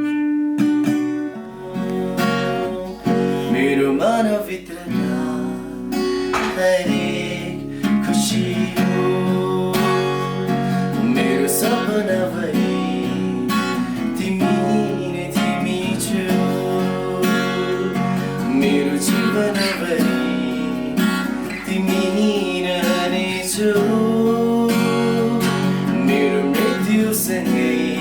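Background music: acoustic guitar strumming with a singing voice.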